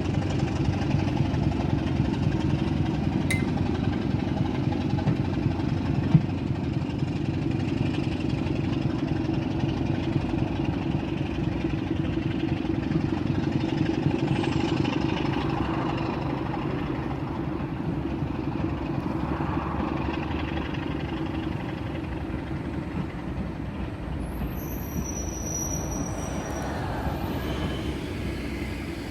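Heritage train running past with a steady low rumble that slowly fades over the second half, and a couple of sharp clicks early on.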